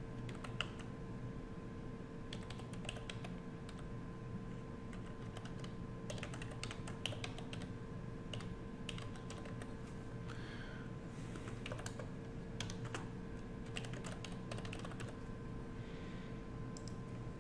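Typing on a computer keyboard: irregular, quick key taps as a short line of text is typed, over a faint steady electrical hum.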